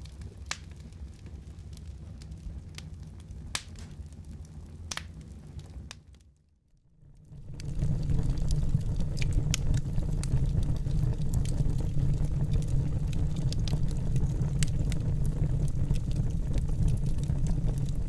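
Wood fire crackling, with sharp pops over a low rumble of burning. About six seconds in the sound fades almost to nothing. About a second later it comes back louder, with denser crackling.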